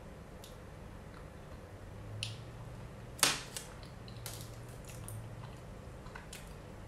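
A person chewing a soft rice dango with red-bean paste: faint mouth clicks and smacks, with one sharper click about three seconds in.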